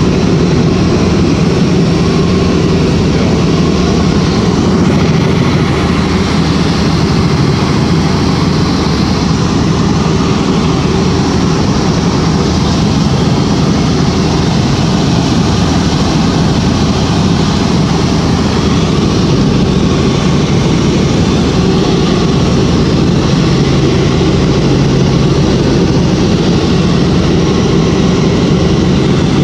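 Helicopter in flight heard from inside the cabin: a loud, steady drone of engine and rotor with a constant hum.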